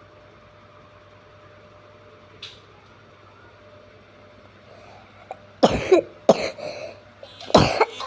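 A person coughing three times, a second or so apart, starting about five and a half seconds in, over a faint steady room hum.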